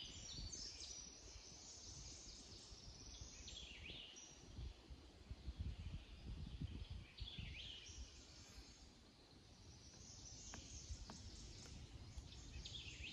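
Songbirds calling faintly, short falling chirps repeated every few seconds, over a low steady rumble.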